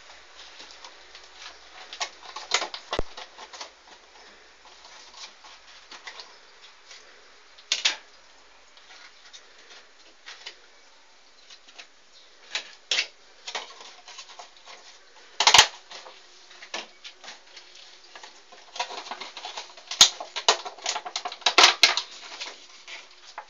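Irregular light clicks and rustles, with a handful of sharper, louder clicks and a denser patch of clicking near the end.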